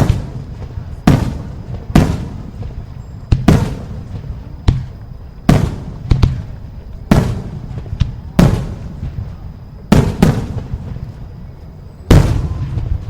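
Fireworks going off: a string of sharp bangs roughly every second or so, a few in quick pairs. Each bang is followed by a fading rumble.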